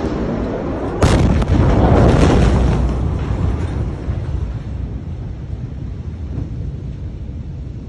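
An explosion: a sudden loud blast about a second in, followed by a deep rumble that fades over the next few seconds.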